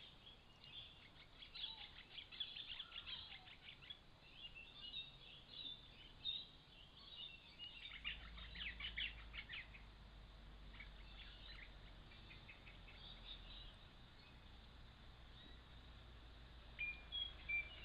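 Faint bird calls: bursts of quick, clicking chatter, strongest in the first few seconds and again about eight to nine seconds in, with a few short clear whistled notes near the end.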